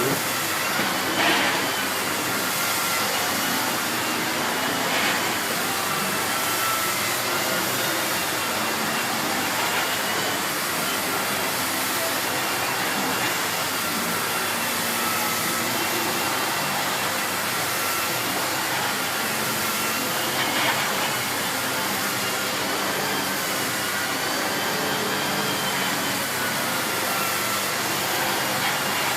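Miele S8 cylinder vacuum cleaner running steadily, a constant rush of air with a motor whine that wavers slightly in pitch, and a few brief knocks.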